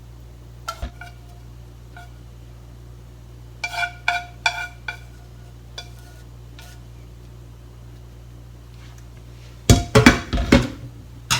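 Cooking utensils clinking against a pan and bowl while simmered beef is served onto udon: a few scattered clicks, a quick run of ringing clinks about four seconds in, then a louder clatter near the end as cookware is knocked and set down.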